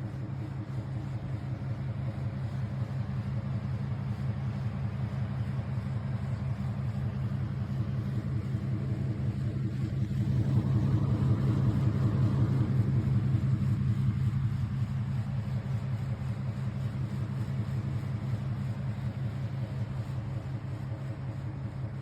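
PC case fans switched on and running with a steady low hum that starts abruptly, swells about ten seconds in and then eases off.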